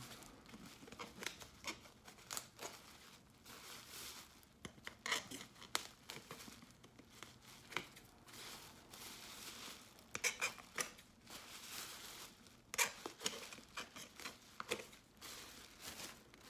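Scissors snipping through a thin plastic produce bag, trimming the excess from around the rim of a mask, with the bag crinkling as it is handled. The snips are short and irregular, spread through the whole stretch.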